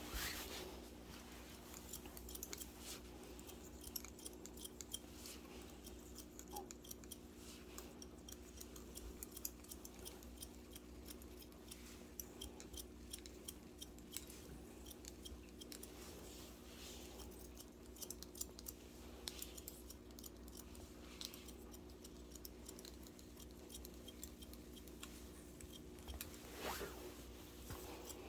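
Barber's long shears snipping hair in quick, irregular cuts, over a steady low hum.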